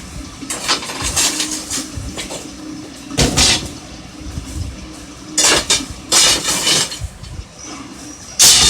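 Metal clanking and scraping in a blacksmith's shop, in about five short bursts with the loudest near the end, over a steady low hum.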